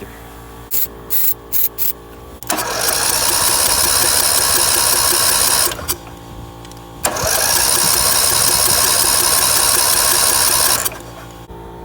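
A few short hissing spurts of starting ether, then the riding mower's 13 hp Briggs & Stratton engine cranked twice by its starter, each run lasting three to four seconds, without catching.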